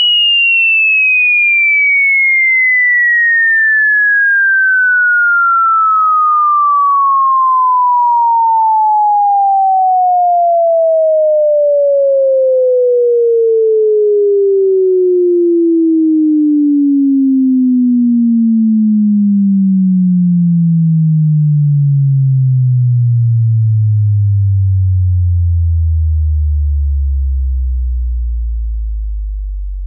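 Sine-wave test tone sweeping steadily down in pitch, from about 3 kHz to below 50 Hz, fading somewhat near the end as it reaches the lowest frequencies.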